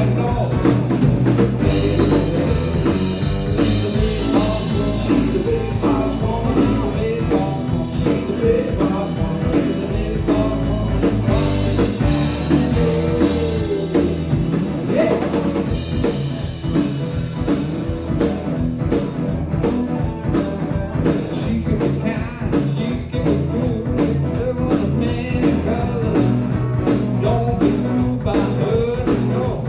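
Live blues-rock band playing: drum kit, electric bass, electric guitar and keyboards, loud and continuous with a steady beat.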